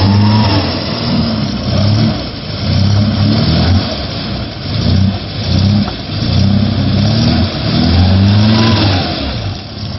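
Off-road vehicle engine revving up and down over and over, its pitch rising and falling about once a second, over a steady rushing noise.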